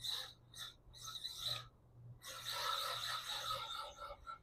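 A 1/12-scale Losi NASCAR RC car driving, its electric motor whirring and its slick tires scrubbing and sliding on the floor as it spins. It comes in a few short bursts and one longer run of about a second and a half, starting about two seconds in.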